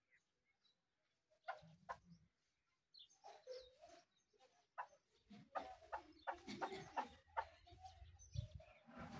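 Caged chukar partridge calling in a run of short, faint notes, starting about a second and a half in and coming thicker from about three seconds on.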